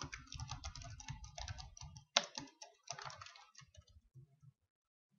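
Typing on a computer keyboard: a quick, dense run of keystrokes for about three seconds, thinning to a few scattered taps.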